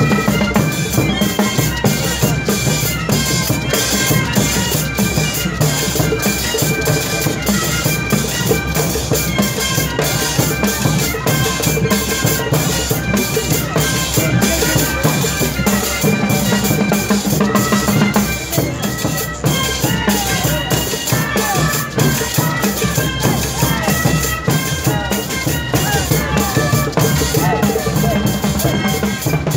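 Live tarqueada played by an Andean wind band: wind instruments carrying the melody over a steady beat of bass drum, snare, congas and cymbals.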